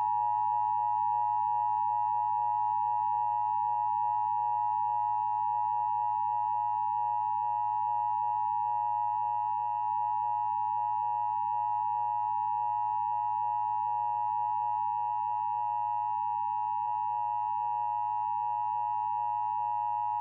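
Emergency Broadcast System attention signal, two steady tones sounded together (853 and 960 Hz) and held without any change, sounded for a test of the system.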